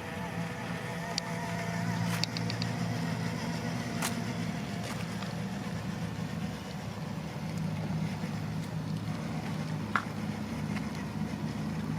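Small electric motor and gear drive of an RC crawler truck running with a steady low whir, with a few sharp plastic clicks and knocks.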